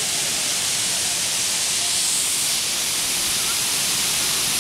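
Fog-sculpture mist nozzles spraying a cloud of fine water mist, making a bright, steady hiss that swells slightly about two seconds in.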